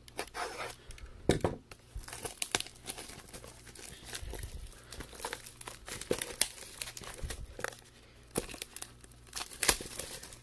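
Clear plastic shrink-wrap being torn and crumpled off a Magic: The Gathering Double Masters VIP Edition pack: a string of sharp crackles and snaps.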